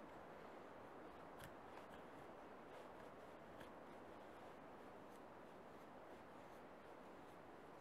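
Faint scrapes of a puukko knife blade shaving thin curls down a split wooden stick, carving a feather stick, several strokes over a low steady hiss.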